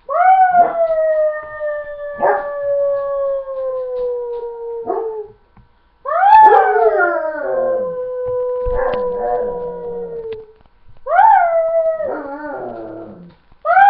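Dog howling: three long howls, each rising sharply at the start, then held and slowly falling in pitch, with short pauses between them and a fourth beginning right at the end.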